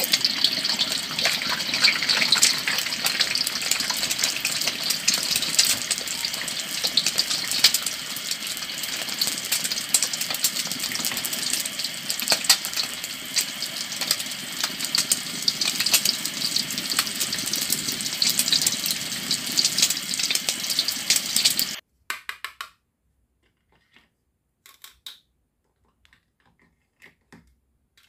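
Steady, dense crackling sizzle of food frying in a pan, cutting off abruptly about 22 seconds in. A few faint clicks of plastic toy pieces being handled follow near the end.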